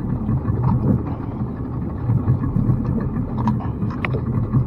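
New Yamaha outboard motor running steadily, an even low hum.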